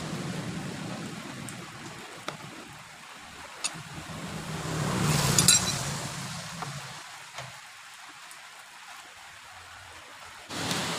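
A vehicle engine running in the background, swelling and fading about five seconds in, with a few light metallic clicks.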